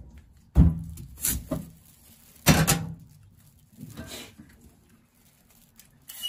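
Dull knocks and thumps of a white radish (daikon) being handled against a stainless-steel sink. The two loudest come about half a second and two and a half seconds in, with lighter knocks between and after.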